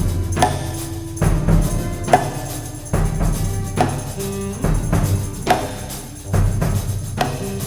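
Slow, free experimental ensemble music: sustained low notes under struck percussion accents that come a little under once a second.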